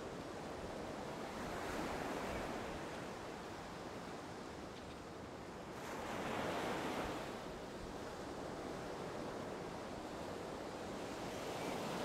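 Sea surf washing onto a sandy beach: a steady hiss of waves that swells about two seconds in and again around six to seven seconds.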